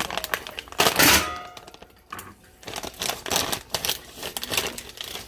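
Kitchen clatter of utensils and cookware: a loud metal clang with brief ringing about a second in, followed by lighter clicks and knocks.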